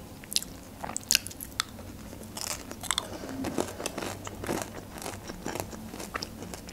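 A person chewing crispy fried food with her mouth closed: irregular small crunches and wet mouth clicks.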